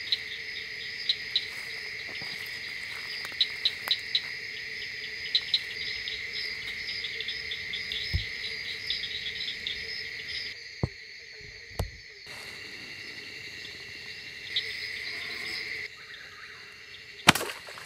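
Chorus of crickets and other insects: a steady high trill with rapid pulsing chirps. A few sharp snaps or knocks cut across it, the loudest near the end.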